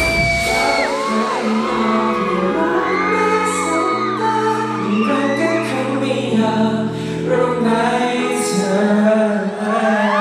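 Live pop music with a group singing over held chords, played loud through a hall's sound system, with fans' high screams rising and falling over it.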